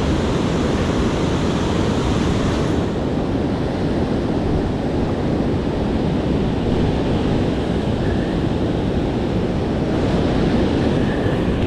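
Steady rushing noise of river water with wind buffeting the microphone. There is no distinct tone or knock. The higher hiss thins about three seconds in.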